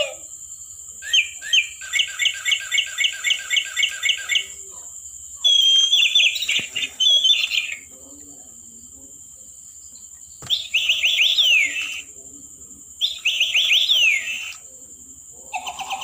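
Toy parrot chirping and whistling through its small speaker: a run of quick chirps at about four a second, then several spells of whistles gliding down in pitch. A steady thin high whine runs underneath.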